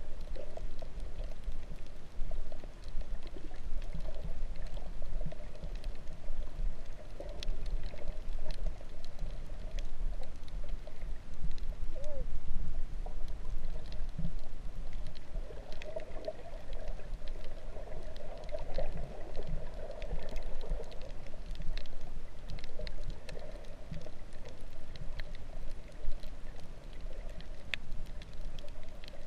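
Muffled underwater water noise from a camera just below the surface: a steady low rumble with wavering sloshing, and faint scattered clicks throughout.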